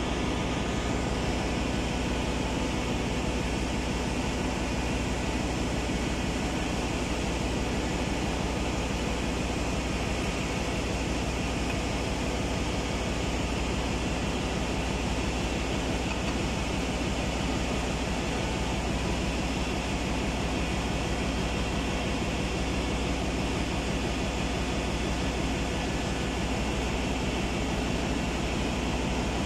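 Steady drone of a ship's engine room: machinery and ventilation running evenly, a dense hum with a few steady tones and no change in level.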